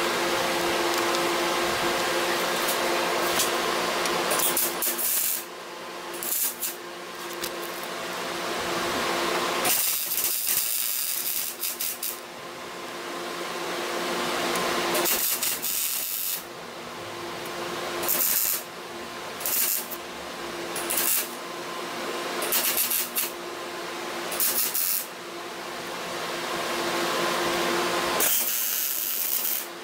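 MIG welder laying a series of short tack welds on steel sheet: about ten separate bursts of arc noise, most under a second and two of about two seconds, tacking a patch panel into a rusted lower A pillar. A steady hum carries on between the welds.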